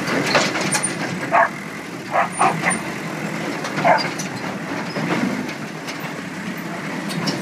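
Case 455C crawler loader's diesel engine running steadily as the machine drives up onto a tip truck's tray. A dog barks about five times over the first four seconds, and these barks are the loudest sounds.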